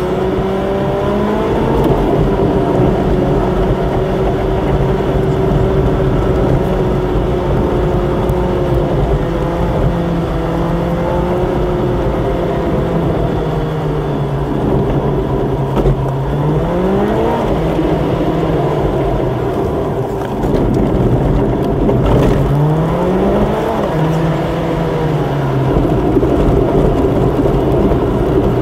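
Car engine and tyre noise heard from inside the cabin while driving. The engine note climbs and then drops twice in the second half, as it revs up through gear changes.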